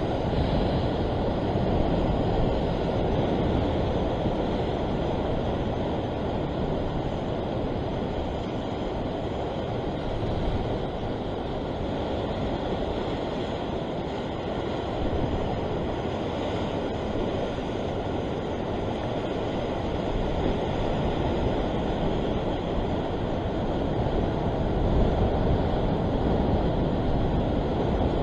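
Steady wind rumbling on the microphone over the wash of ocean swell breaking on the rocks below, rising and falling gently.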